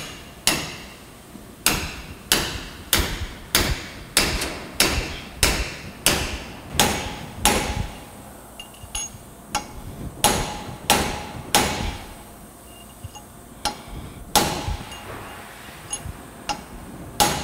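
Hammer blows on a valve-guide driver, driving new valve guides into a cast-iron cylinder head. A steady run of about a dozen sharp strikes, roughly one every two-thirds of a second, stops about eight seconds in. After a short pause come three quicker strikes, then two single ones spaced a few seconds apart.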